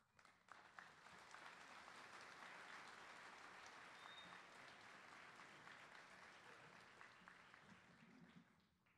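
Audience applauding, a steady spread of clapping that dies away near the end.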